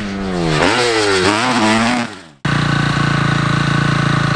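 Motocross bike engine revving hard, its pitch climbing and dropping again several times as the rider works the throttle and gears, then fading away. After a sudden cut about halfway in, a steady, even engine drone takes over.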